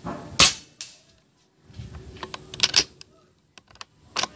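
Pre-charged pneumatic (PCP) air rifle firing, a sharp crack about half a second in. A series of sharp clicks follows, the rifle's bolt being worked to chamber the next pellet from the magazine.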